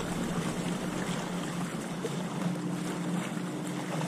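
Lake water lapping and sloshing around a person wading deep, with wind on the microphone and a faint steady low hum underneath.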